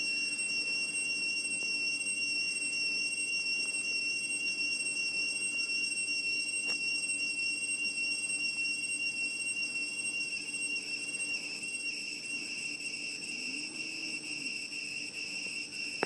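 Steady insect chorus: several high, unbroken tones held together, easing slightly in the last few seconds.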